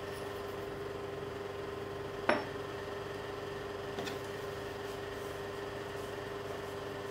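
A steady background hum with one sharp click about a third of the way in, a small hard part knocked or set down while lens pieces are handled. A much fainter tick follows about two seconds later.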